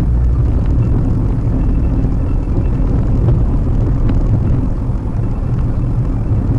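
Steady low road and engine rumble inside a moving Maruti Suzuki WagonR's cabin, picked up by the dashcam microphone while cruising.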